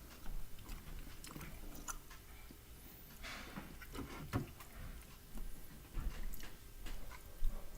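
Close-range handling noises: scattered small clicks and knocks, with a brief rustle about three seconds in.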